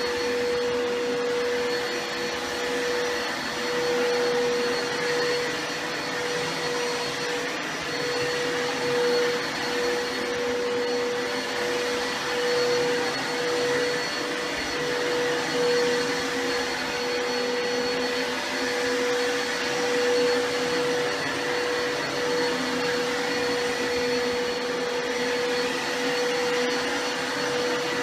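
Vacuum cleaner motor running steadily: a rush of air with a constant mid-pitched whine on top, the level rising and falling only slightly.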